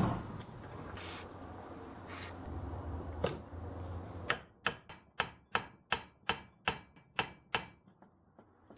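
Hand tools straining against a seized brake caliper clamped in a vise: metal rubbing and scraping with a few sharp knocks, then about halfway through a run of about a dozen sharp clicks, three or four a second. The piston is very tight.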